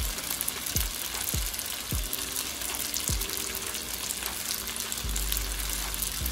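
Noodles sizzling as they fry in a pan, under background music with a deep thudding beat about every two-thirds of a second early on and a low bass line coming in near the end.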